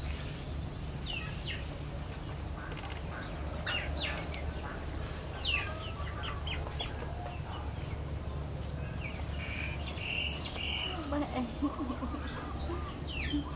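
Outdoor ambience of small birds chirping again and again, with a few lower calls near the end, over a steady low background rumble.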